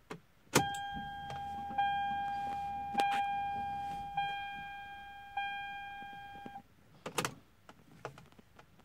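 Ignition key of a 1997 Toyota Supra clicked to on, then the dash warning chime rings five times about a second apart, a single clear tone each, over a faint low hum. The chime stops as the key is clicked back off near the end, one key cycle.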